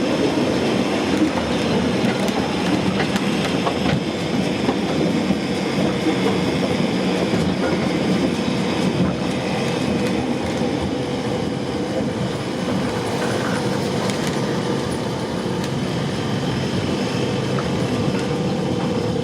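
A rail car running along its track: a steady rumble and rattle from the wheels, with scattered clicks and a faint steady whine.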